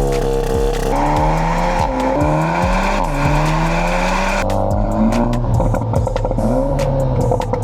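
Seat Leon Cupra ST's 2.0-litre turbocharged four-cylinder engine revving through a Milltek non-resonated cat-back exhaust, the pitch climbing and dropping several times.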